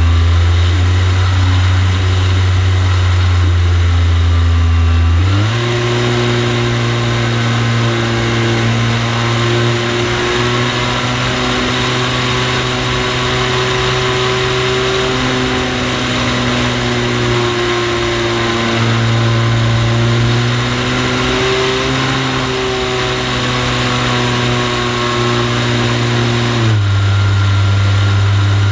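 Onboard sound of an RC T-28 model plane's motor and propeller in flight, a steady drone with a rush of air over the camera. The pitch steps up about five seconds in as the throttle opens and drops back near the end.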